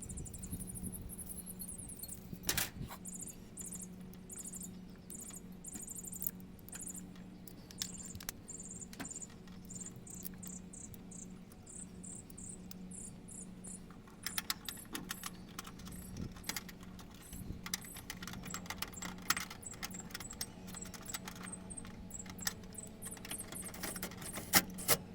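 Small metal clinks and rattles of hardware and hand tools as a run capacitor is mounted with metal pipe strap, busiest in the second half, over a steady low hum. A fast, pulsing high-pitched chirp, like an insect, runs through the first half.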